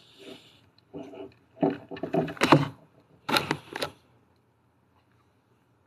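Handling noise from the phone recording close up: three short bursts of rubbing and knocking within the first four seconds.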